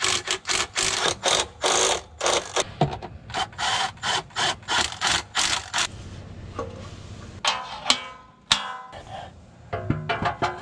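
Cordless power driver run in short repeated bursts, about three a second, working the bolts of a truck's transmission pan. It then gives way to quieter handling sounds with a couple of brief whirs.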